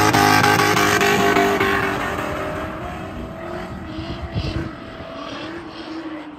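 Two drift cars sliding in tandem, engines held at high revs with tyre noise under them; the sound fades steadily as they move away.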